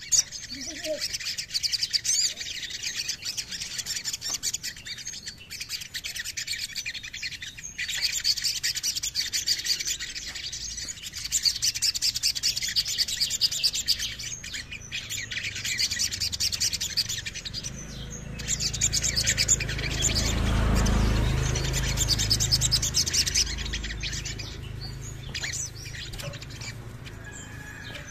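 Male olive-backed sunbird (sogon) singing: long runs of fast, high chirps and trills with brief breaks. About two-thirds of the way in, a low rumble swells and fades underneath the song.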